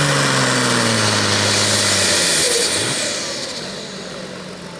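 International Harvester 1466 Pro Farm pulling tractor's turbocharged diesel at full throttle, hooking into the sled. Its note drags down under the load for about two and a half seconds, then the engine sound falls away.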